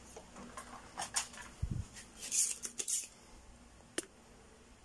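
Small clicks, taps and scrapes of a soldering iron and hand tools being handled over a TV circuit board. There is a short hissy scrape about two and a half seconds in and a single sharp click about four seconds in.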